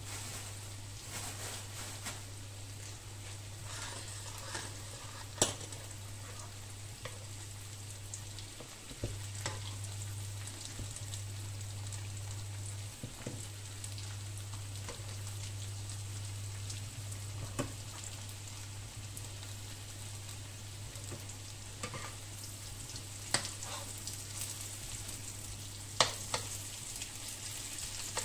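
Diced potatoes frying in butter in a pan, sizzling steadily, with scattered sharp clicks and a few louder knocks of a utensil, over a steady low hum.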